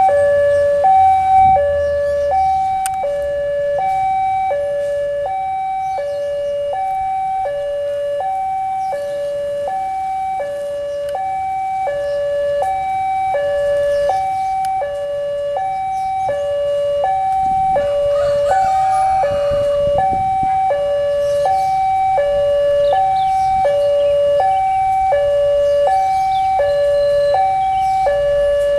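Railway level-crossing warning alarm sounding its two-tone electronic chime, a higher and a lower note alternating steadily with about one high-low pair a second. It signals that the crossing is closed for an approaching train.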